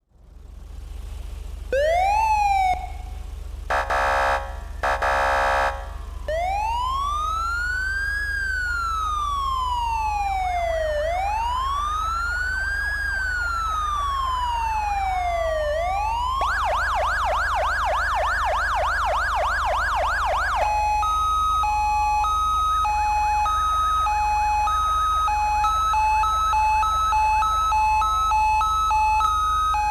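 Code 3 Z3 electronic police siren stepping through its tones. First comes a short rising whoop, then two buzzing horn blasts. Next is a slow wail that rises and falls every four to five seconds, then a fast yelp from about sixteen seconds in, then a two-pitch hi-lo from about twenty-one seconds. A steady low hum runs underneath.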